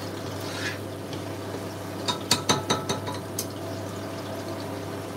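A metal slotted spoon clinks against the rim of a pot in a quick run of about six strikes about two seconds in, over a steady low hum and the light sizzle of onions frying in oil.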